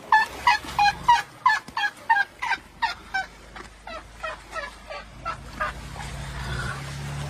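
Asian elephant chirping: a rapid series of short, high-pitched squeaky calls, about three a second, loud at first and fading away over about five seconds.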